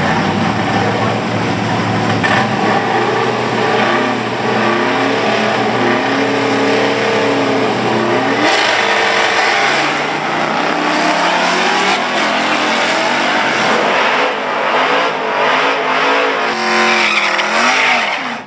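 Drag cars' V8 engines running at the starting line, revved up and down over and over, with a steep rev rise near the end as a car launches.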